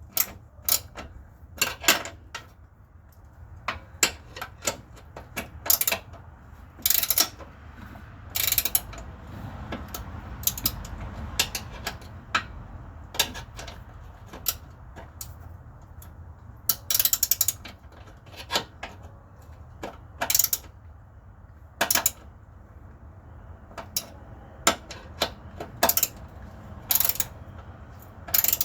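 Hand ratchet wrench clicking in short runs of strokes with pauses between, as the engine mount bolts are run in and tightened.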